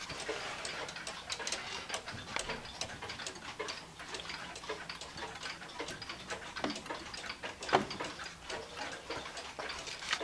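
1970s Emperor grandfather clock with a chain-driven movement, ticking steadily as its pendulum swings. One louder click comes about eight seconds in.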